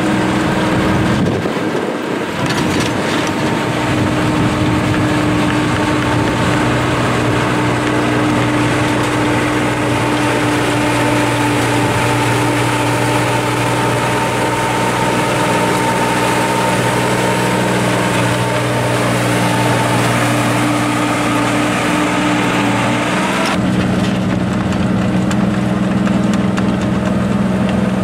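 Hanix S&B15 mini excavator's engine running steadily while the machine works in snow. Its note shifts abruptly near the end.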